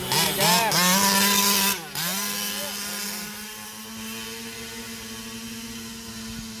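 Small two-stroke 30.5cc gasoline engine of a 1/5-scale RC truck revving up and down in quick throttle blips, then holding a steady high-revving drone that fades as the truck drives off into the distance.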